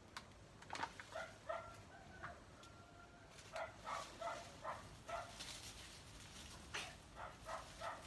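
A dog barking in two runs of short barks, about three a second, one near the middle and one near the end, with a few fainter calls before them.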